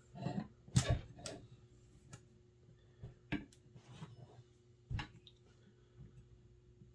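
Irregular small metal clicks and knocks as the barrel of a semi-automatic Marauder air rifle is handled and fitted back into the gun, the strongest a little under a second in and again about five seconds in.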